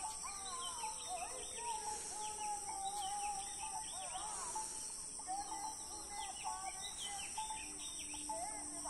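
Several birds chirping and warbling in quick, overlapping whistled phrases, over a steady high-pitched insect drone.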